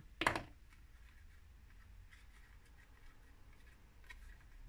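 Faint rustles and small taps of paper card being folded and pressed by hand, after a brief vocal sound right at the start.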